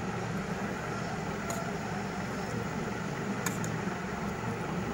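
A steady low mechanical hum, with a couple of faint light clicks.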